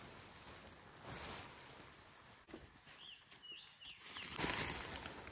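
Nylon tent fabric rustling and crinkling as a dome tent is taken down and its corner unclipped, loudest in the last second. A few faint, short high chirps about three seconds in.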